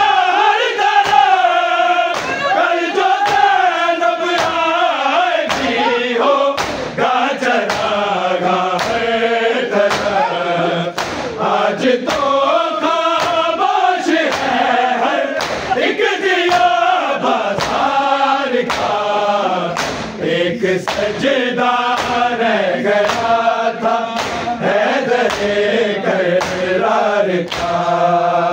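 A group of men chanting a Shia noha in Urdu, voices in unison with a lead singer. Under the singing runs a steady beat of sharp strikes, the rhythm of matam (chest-beating).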